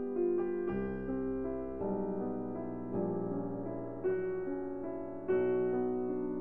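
Slow background piano music, held notes changing about once a second over low bass notes.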